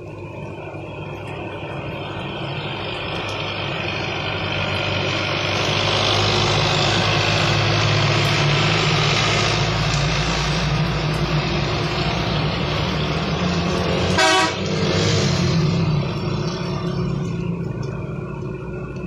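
Heavily loaded trucks passing on a rain-soaked road: engines running and tyres hissing on the wet surface, swelling over several seconds, holding, then fading away. A short horn blast sounds about fourteen seconds in.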